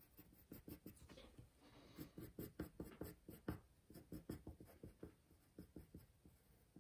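Pencil scratching on drawing paper in many quick, short strokes, faint, busiest in the middle.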